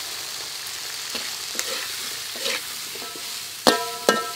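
Green peas sizzling in oil in a hot metal wok while a metal ladle stirs them; near the end the ladle knocks against the wok twice with short ringing clanks.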